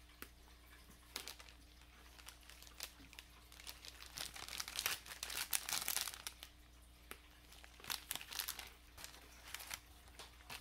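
Crinkling of the plastic inner wrapper of a Pocky pack as it is handled and torn open: irregular crackles that are heaviest in the middle and again near the end.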